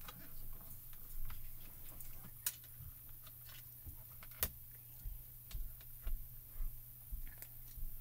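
Faint clicks and taps of a plastic stamping platform being handled as a stamp is pressed onto card and the hinged clear lid is lifted, with two sharper clicks, the louder a little past halfway.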